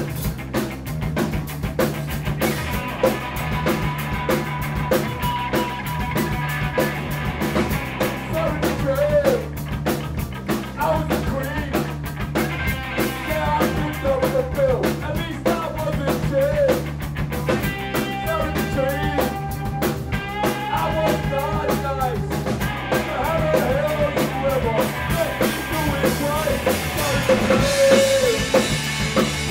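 Punk rock band playing live: drum kit keeping a steady beat under electric guitars and bass, with a voice singing over it from about a third of the way in.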